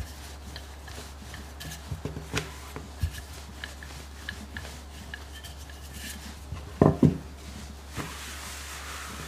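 Wooden rolling pin rolling pastry dough on a floured wooden worktop: soft rubbing and light clicks, with two louder knocks about seven seconds in.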